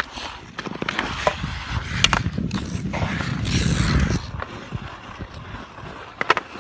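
Ice skate blades scraping and carving across pond ice, heaviest about two to four seconds in, with several sharp clacks of hockey sticks striking the puck.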